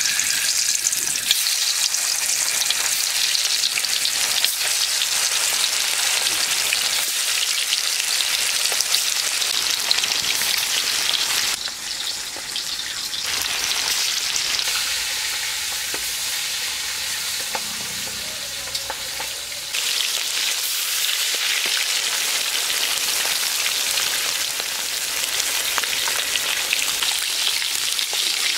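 Pieces of salt-and-turmeric-rubbed fish frying in hot oil in a kadai, with a dense, steady sizzle. The sizzle dips slightly about twelve seconds in and rises again about twenty seconds in.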